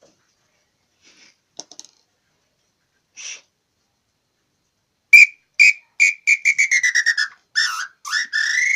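A lathe-turned nambu (tinamou) bird call being blown to test it. After a few faint handling clicks come two short whistles, then a quick run of notes falling in pitch, then a long whistle that rises and holds. The call now gives a clean whistle after its sound was refined.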